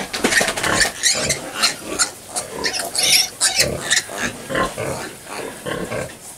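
A litter of piglets nursing on a sow, with many short, irregular grunts and squeals from the pigs, louder in the first few seconds and fading towards the end.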